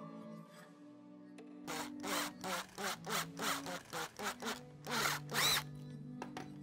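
Power drill with a twist bit drilling a hole through a motorcycle taillight bracket, the trigger worked in about eight short bursts that each spin up and wind down in pitch. Background music runs underneath.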